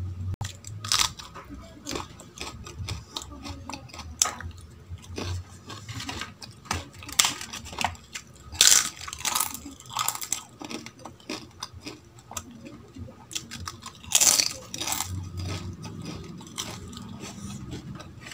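Close-miked eating: wet chewing of dal and rice eaten by hand, broken by irregular crisp crunches and snaps of papad and bites of raw green chilli.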